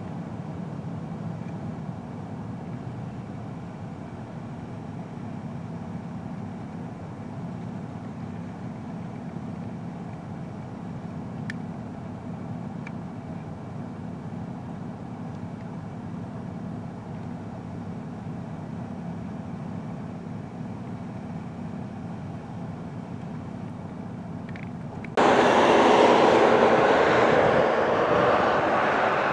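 A steady low rumble, then about 25 seconds in an abrupt switch to a much louder, broad rushing noise.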